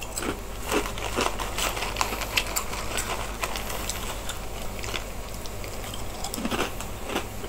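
Crisp snack crackers being crunched and chewed, with irregular crackly clicks throughout. A foil snack bag crinkles as a hand reaches in for more.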